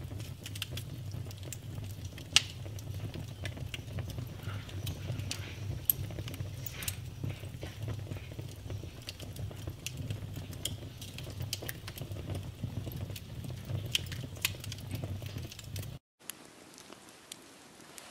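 Wood fire crackling and popping irregularly over a steady low rumble, with two sharp, loud pops about two and a half and six seconds in. About sixteen seconds in the sound cuts out for a moment and resumes as quieter crackling without the rumble.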